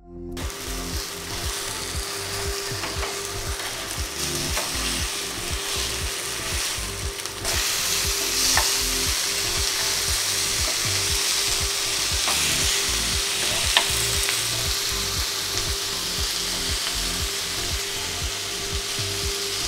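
Pomfret pieces sizzling in oil on a flat iron tawa, a steady frying hiss that gets louder about seven seconds in, with a few light ticks from a spatula.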